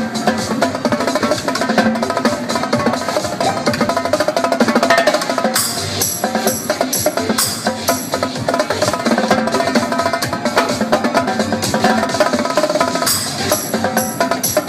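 Dance music with live drum-kit percussion played over it: fast, dense stick strokes on drums and rims, with cymbal hits in two stretches, one in the middle and one near the end.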